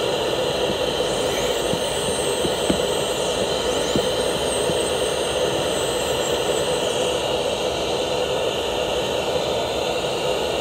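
Dental lab rotary handpiece spinning a bur and grinding pink PMMA acrylic gum material: a steady motor whine over grinding hiss, with a few faint ticks.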